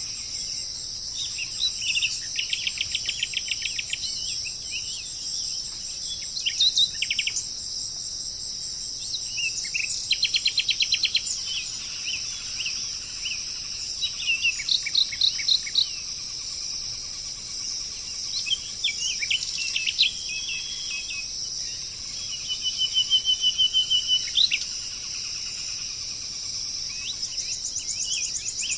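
Songbirds chirping and singing rapid trills every few seconds over a steady, high-pitched drone of insects.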